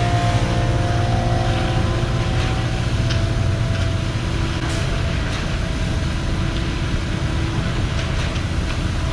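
Concrete boom pump truck's diesel engine running steadily while it pumps concrete out through the boom hose.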